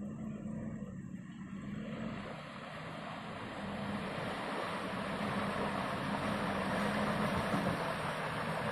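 Toyota Hilux pickup's engine pulling steadily at low speed through deep mud, with a rising wash of noise from its tyres churning and splashing through the wet mud, getting louder as the truck comes closer.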